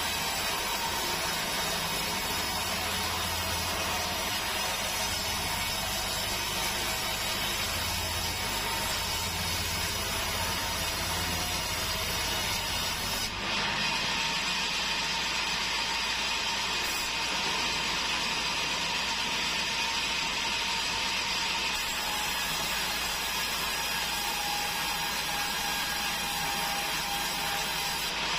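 Sawmill band saw running and ripping keruing hardwood lengthwise, a steady continuous sawing noise with a faint whine. The sound shifts abruptly about halfway through.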